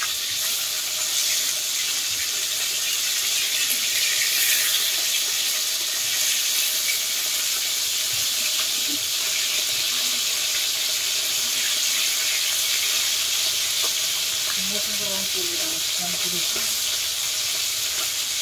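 Fish pieces frying in hot mustard oil in a kadai: a steady sizzle with fine crackling throughout.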